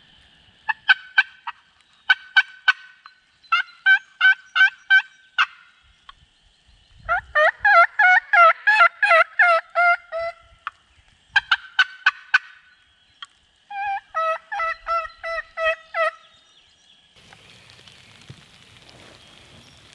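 Hen turkey calling worked by a hunter on a turkey call: series of yelps in short runs, with a faster, louder run of notes in the middle, called aggressively to pull in roosted gobblers. Near the end, a faint steady hiss of rain.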